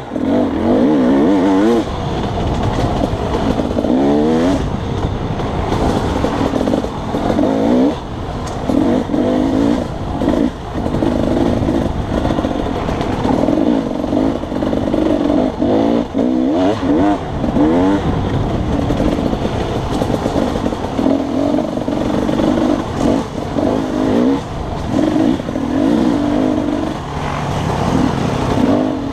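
Dirt bike engine revving hard while being ridden along a twisting trail: the note rises in repeated bursts under throttle and drops away each time the throttle is closed.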